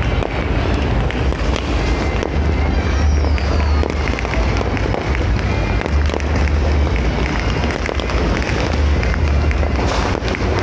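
Fireworks popping and crackling, with a low rumble of wind on the microphone.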